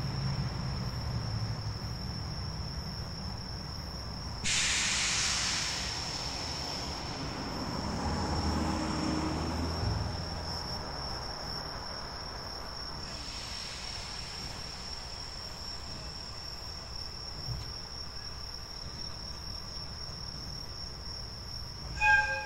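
An electric locomotive stands in a freight yard, a low rumble of its equipment running under steady insect chirping. About four and a half seconds in there is a hiss of released compressed air, and a fainter one comes around thirteen seconds. A short train-horn blast near the end is the loudest sound.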